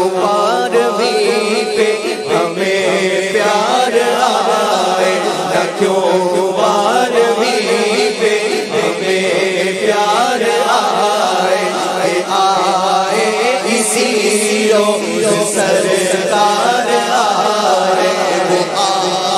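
A man singing an Urdu naat, a devotional song in praise of the Prophet, into a microphone. He draws out long, wavering, ornamented notes over a steady low drone.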